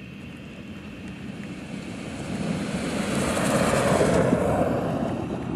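Jeep Gladiator Mojave pickup driving off-road, a rushing engine and tyre noise that grows louder, is loudest about four seconds in, and cuts off abruptly at an edit.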